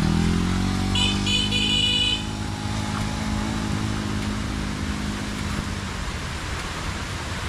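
A motor vehicle engine rising in pitch for about a second, then holding steady and fading out by about six seconds in. A short run of high beeps sounds around one to two seconds in.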